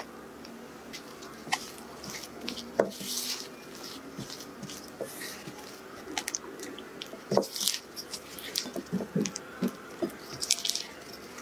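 Silicone spatula mixing butter and icing sugar in a glass bowl: soft, irregular scrapes and light knocks against the glass, busier in the second half.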